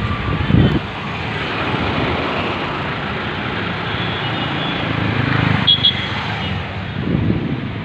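Steady engine and road noise heard from inside a moving car's cabin on an uneven street, with a loud low thump about half a second in and a couple of smaller bumps later.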